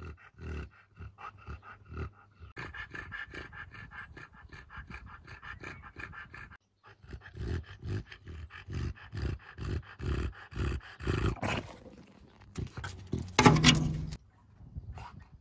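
English bulldog breathing noisily in a steady rhythm of wheezy, snuffling breaths, about two a second, the sound of the breed's short, flattened airway. One louder, lower sound comes near the end.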